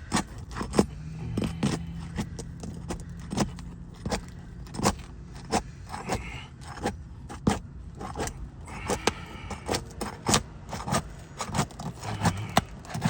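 A pry tool being worked under stuck asphalt roof shingles to break them loose: irregular sharp snaps, clicks and scrapes, about one or two a second.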